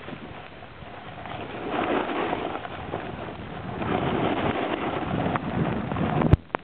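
Wind rushing over the microphone and a snowboard sliding over the snow during a run, the noise swelling twice. A sharp click near the end.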